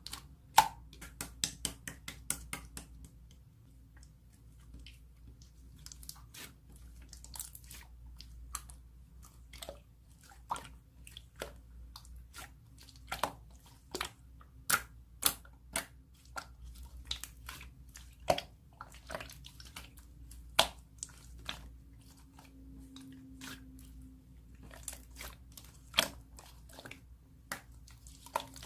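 Milky slime being squished and kneaded by hand, giving irregular sharp clicks and wet pops, several a second in clusters.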